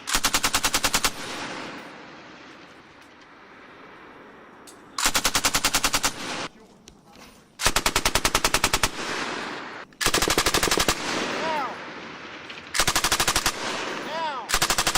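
Belt-fed machine gun firing six short bursts of rapid, evenly spaced shots, each lasting about half a second to a second and a half, with echo trailing between bursts. A falling whistle follows some of the later bursts.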